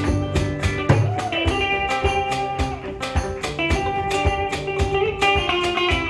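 Live guitar music: an electric guitar picks a melodic line, with one note sliding in pitch about a second in, over an acoustic guitar strummed in a steady rhythm.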